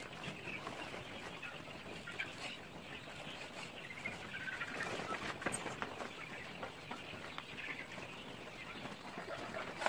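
Chickens clucking and calling, mixed with the rustle and crinkle of a woven plastic feed sack being handled.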